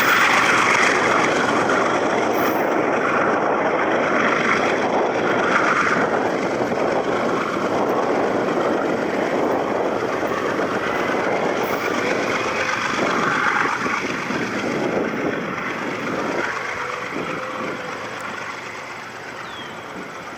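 Double-stack intermodal freight train rolling past, a steady rumble and clatter of wheels on rail that fades away over the last few seconds.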